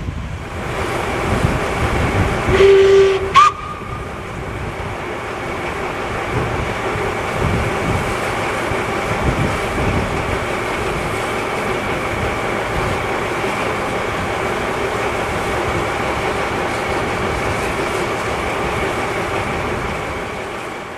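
Narrow-gauge steam locomotive giving a short whistle blast about three seconds in, over a steady locomotive noise that fades near the end.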